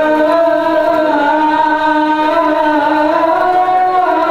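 Islamic chanting: one voice holding long, drawn-out notes that shift slowly in pitch, as in a call or recitation sung from a mosque.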